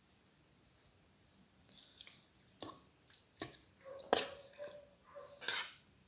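A perforated metal slotted spoon mashing soft cooked potato and garlic in a ceramic bowl: irregular wet squishing strokes with sharp clinks of metal against the bowl, the loudest about four seconds in.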